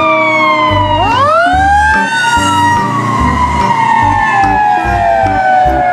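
Fire engine siren wailing: the tone sweeps up about a second in, then slowly falls.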